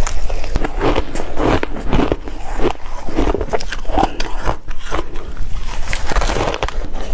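Crunchy ice being bitten and chewed close to the microphone: a loud, irregular run of crunches.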